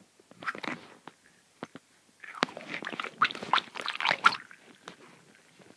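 Squishy rubber stress ball squeezed and kneaded in the hand close to the microphone: irregular squelching and crackling with a few sharp clicks, busiest in the second half.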